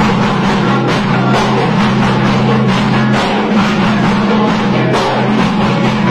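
Music with drums and a held low note, steady in loudness throughout.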